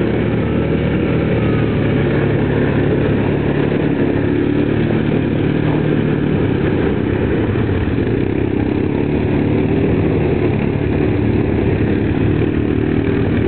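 ATV engines running steadily as the quads churn through slushy, muddy meltwater, with splashing.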